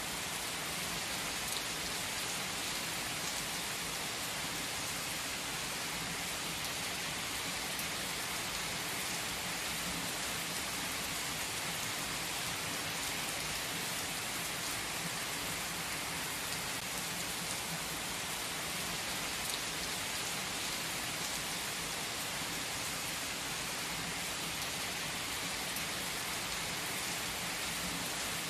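Heavy rain pouring onto asphalt pavement: a dense, steady hiss that holds at one level throughout.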